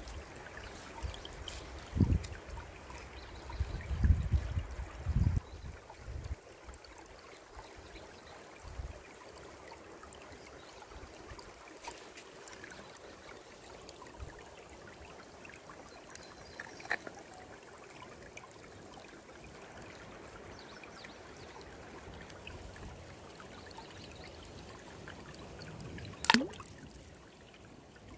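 Shallow mountain stream trickling steadily over a pebbly bed. A few low thumps in the first several seconds, and one sharp click about 26 seconds in.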